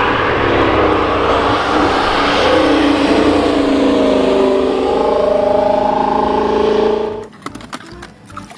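Racing car engine revving, its pitch slowly rising over several seconds, then cutting off about seven seconds in.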